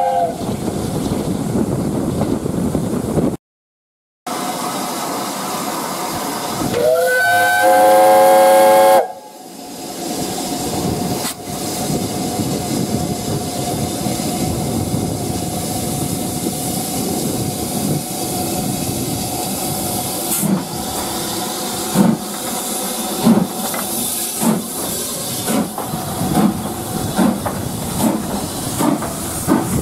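Steam locomotive whistle sounding twice, the second time for about two seconds with a rising onset, over the running noise of a steam train. Then a steady hiss of steam from BR Standard Class 5 No. 73082, and from about two-thirds of the way in its exhaust beats as it starts away with steam blowing from the cylinders, the beats coming closer together as it gathers speed.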